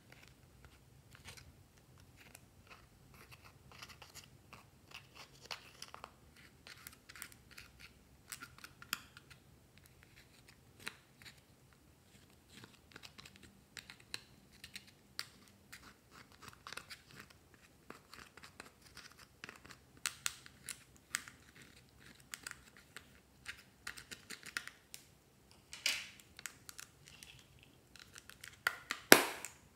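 Metal scissor tips scraping and crumbling pressed eyeshadow out of a makeup palette's pans: a long run of small, irregular scratches and clicks. The scratches grow busier in the second half, and a few louder knocks come near the end.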